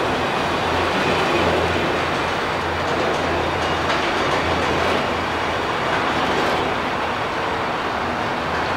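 Empty autorack freight cars rolling slowly past: a steady, continuous noise of steel wheels on rail.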